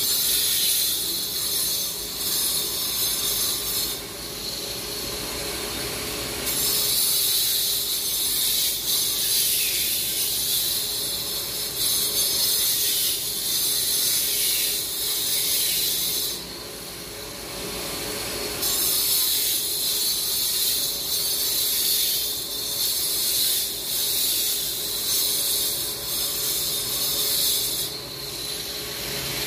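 Handheld power cutter grinding into an asphalt road surface with a high screech over a steady motor tone. It cuts in long stretches, stopping briefly about four seconds in, again about seventeen seconds in, and near the end.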